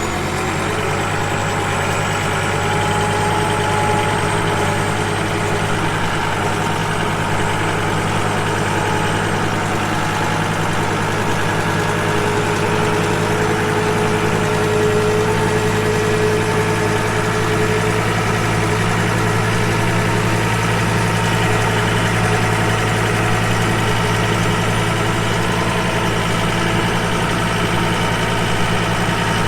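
Engine running steadily at an even speed, a constant low hum that holds unchanged throughout.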